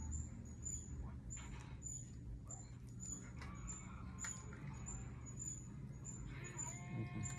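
Faint clicks and light knocks of ring-light tripod parts being handled and fitted together, over a steady low hum. A short, high chirp repeats evenly about twice a second.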